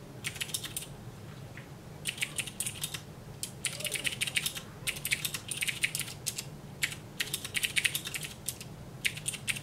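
Keys clicking on an MSX keyboard as a line of BASIC is typed: short runs of quick keystrokes, broken by brief pauses, about seven runs in all.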